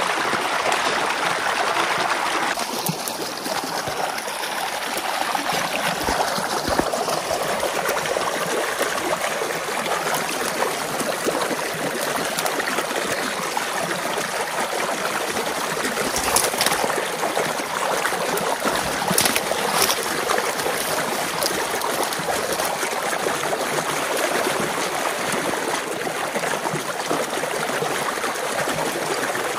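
Water rushing and gurgling in a steady flow through a breach in a beaver dam as the pond behind it drains.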